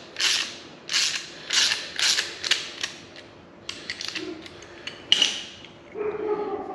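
Metal exhaust hardware being worked loose by hand on a Harley-Davidson Road Glide ST muffler: a run of short scraping, ratchet-like strokes at about two a second, then scattered clicks with one sharp click about five seconds in, and a brief metal creak near the end.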